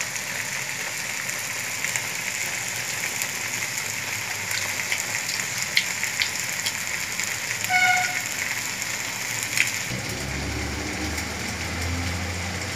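Vegetable curry sizzling in a hot wok, a steady hiss, with a few light clicks and a short ringing note about two thirds of the way through. Near the end the hiss gives way to a low hum.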